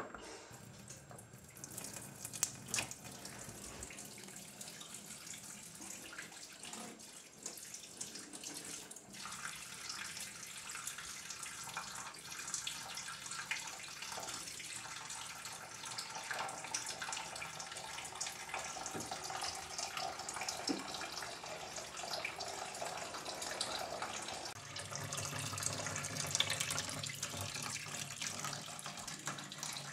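Kitchen tap running a thin stream of water into a stainless steel sink, a steady trickling splash with scattered light clicks, a little louder near the end.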